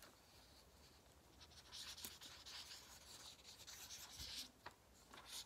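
Faint scratching of a felt-tip marker drawing on paper, starting about a second and a half in and going on in uneven strokes with short gaps.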